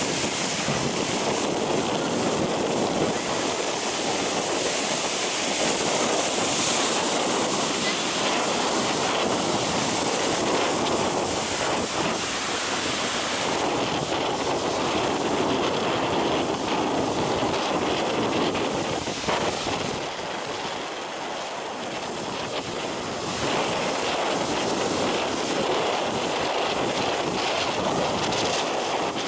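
Ocean surf breaking and washing up a sandy beach, a continuous rushing wash of waves, with wind blowing on the microphone. It eases a little about two-thirds of the way through.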